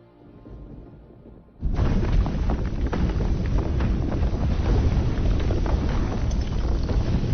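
A deep, loud rumbling roar that starts suddenly about a second and a half in and keeps on: a disaster film's sound effect of an undersea earthquake, mixed under the score.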